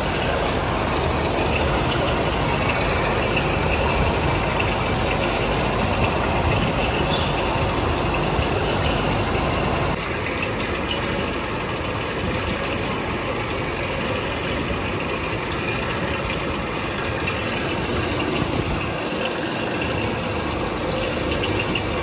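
Continuous rotary-drum carbonization furnace running: a steady, dense mechanical noise from the turning drum and its chain-and-gear drive. About ten seconds in the sound thins a little in the low end, and a faint high squeak repeats roughly every second and a half.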